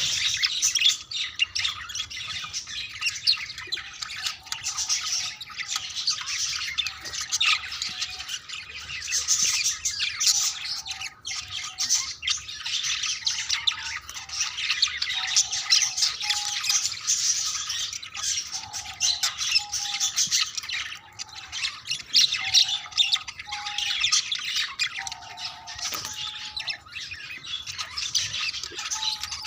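Budgerigars chattering and warbling nonstop in dense, rapid calls, with a series of short lower notes repeating through it from a few seconds in.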